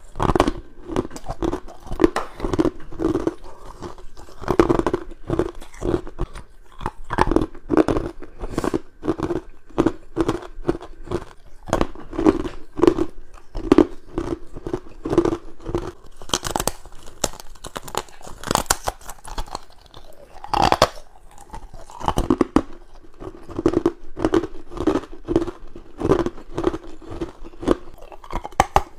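Close-up biting and crunching of frozen humidifier frost and ice: a rapid, continuous run of sharp crunches, several a second.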